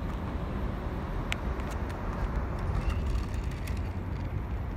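Steady low outdoor rumble with an even haze of noise, and a few light clicks and taps scattered through, the sharpest about a second in.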